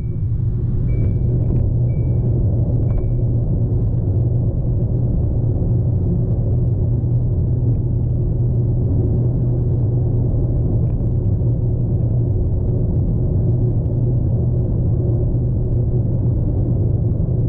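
Steady low rumble of a car heard from inside the cabin. A few short, high beeps come about a second apart during the first few seconds.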